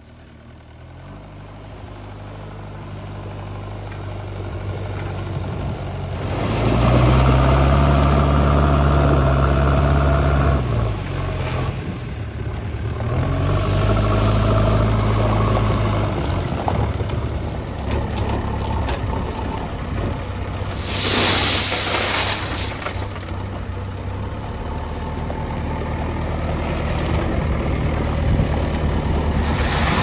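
JCB 3DX backhoe loader's diesel engine running under load as the front loader works, its speed rising and falling twice in the first half. There is a brief rush of noise about 21 seconds in.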